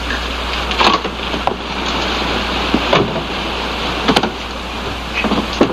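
Steady wind-and-sea noise on a boat's deck with a constant low hum underneath, broken by about six short knocks.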